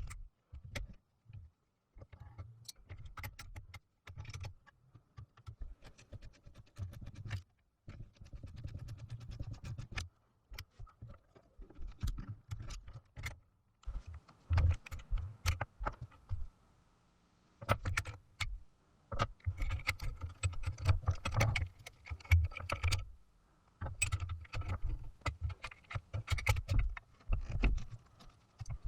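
Small metal parts and hand tools being handled: irregular clicks, clinks and rattles, coming more thickly and louder in the second half.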